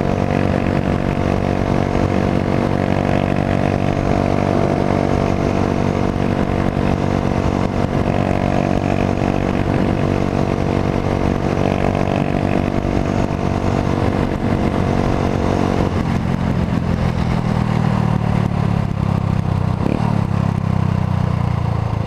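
A 1999 Honda CG motorcycle's single-cylinder four-stroke engine running through a GP Competition aftermarket exhaust, held at steady revs while riding, then dropping to a lower, deeper note about three quarters of the way in as the throttle comes off. The rider finds the bike slow and suspects worn clutch plates.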